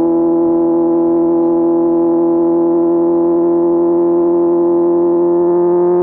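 Inline-four motorcycle engine running at steady revs under way, a smooth even tone whose pitch creeps up slightly near the end.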